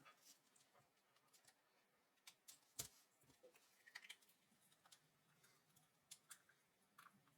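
Faint, scattered clicks and taps of plastic Lego Technic pieces being handled and fitted, a few irregular sharp clicks over low room hiss.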